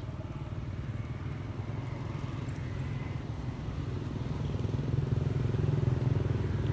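Low, steady rumble of a motor vehicle's engine, growing louder toward a peak about five seconds in, as if passing close by.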